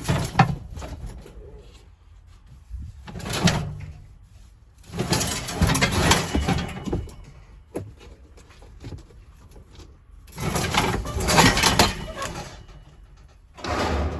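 Scrap metal being unloaded: a metal grill is pulled out and handled, giving several bursts of scraping and clattering with short pauses between.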